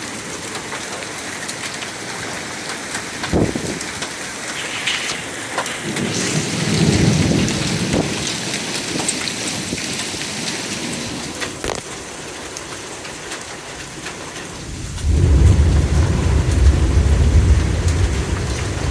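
Torrential rain pouring down steadily during a thunderstorm. Thunder rumbles low around 6 to 8 seconds in and again more loudly from about 15 seconds in.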